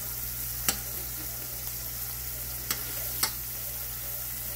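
Salmon fillets frying in olive oil and lemon juice in a stainless steel skillet, a steady sizzle, with a metal spoon clinking against the pan three times.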